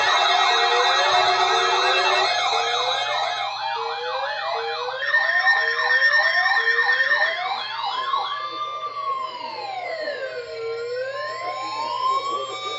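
Several electronic sirens sounding together, first in rapid repeated rising whoops, about one and a half a second, then about eight seconds in changing to a slow wail that rises and falls every few seconds. A faint steady low hum runs underneath.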